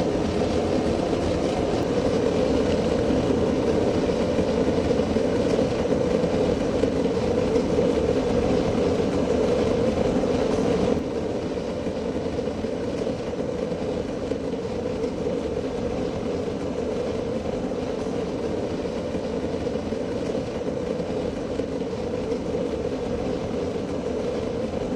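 Blower-fed gas furnace running with a steady roar, its burner and blower noise strongest in a low-mid band; it steps down a little in level about eleven seconds in.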